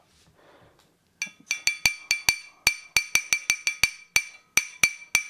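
A metal tool tapping rapidly on the cracked glass envelope of a high-pressure sodium bulb, each tap a sharp clink with a short ringing note, about four to five a second, starting about a second in. The tapping spreads a scored crack so the glass outer bulb comes apart.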